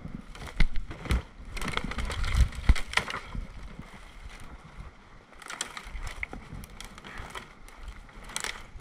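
Footsteps crunching through snow and brush, with irregular knocks and low thumps. They come thickest in the first three seconds and again from about five and a half seconds in.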